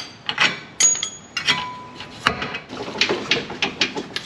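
Hand tools knocking and clinking on steel suspension parts as a rear shock absorber is taken off: a run of irregular sharp clanks and taps, with a short metallic ring after a couple of the strikes.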